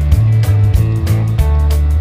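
Background music with a steady beat, a strong bass line and guitar.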